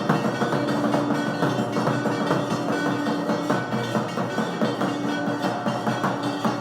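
Temple aarti music: bells and drums struck in a quick, steady rhythm. A held note sounds over them for about three seconds, then again briefly near the end.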